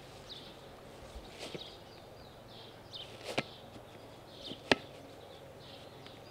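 Two sharp knocks about a second apart, the second louder, from soccer balls being batted and stopped by hand, over faint, repeated bird chirps.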